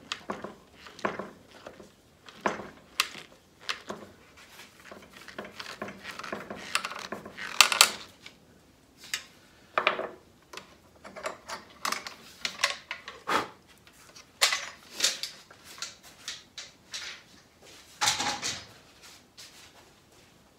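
Screws driven by hand with a screwdriver into the hardwood elm of a clamped table frame, and the frame and bar clamps handled: a string of irregular clicks, knocks and creaks of metal and wood.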